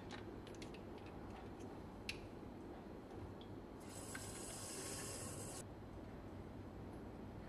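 A plastic spray bottle being handled and refilled: a few light clicks early on, then a steady hiss lasting about a second and a half from about four seconds in.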